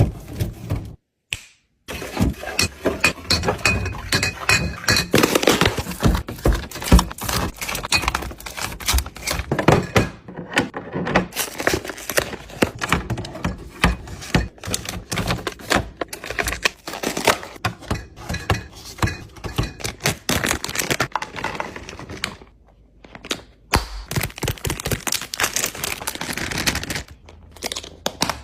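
Food containers and bottles being set down and moved about on fridge shelves: a busy run of knocks, clinks and thuds, with a brief drop to silence about a second in and a quieter pause near the end.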